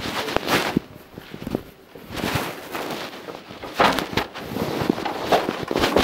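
Irregular rustling and scraping noises close to the microphone, one after another, with no steady rhythm.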